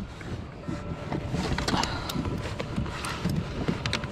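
Scattered light clicks and knocks of a lingcod being handled on a kayak after being bonked, over a steady background of water and wind on the microphone.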